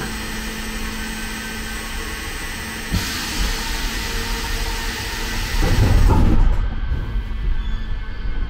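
Ganz MFAV metro car standing at a station with a steady hum. About three seconds in there is a click and a hiss that lasts a few seconds, and near six seconds a low rumble swells as the train begins to pull away.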